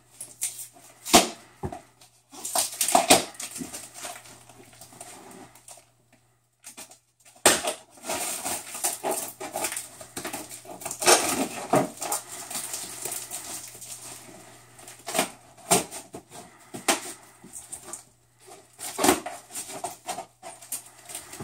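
Packing tape on a cardboard box being cut with a small blade and ripped off in irregular tearing and scraping strokes, with sharp clicks and short pauses between them.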